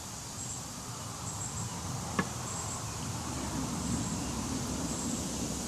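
Honeybees buzzing around an opened hive, a low drone that swells from about halfway through, over faint repeated high insect chirps. A single brief click about two seconds in.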